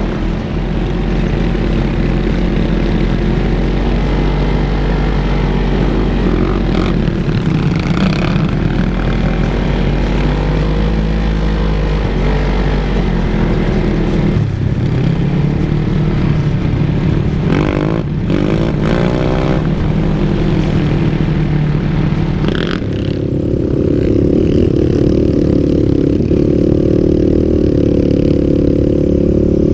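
Off-road vehicle engine running under way on sand, its pitch falling and climbing as the throttle is worked, with a quick run of rising revs a little past halfway. A rushing noise over it drops away about three quarters of the way through, leaving a steady engine note.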